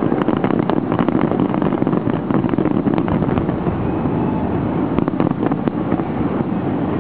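Fireworks going off: a continuous rumble with scattered sharp cracks and crackles.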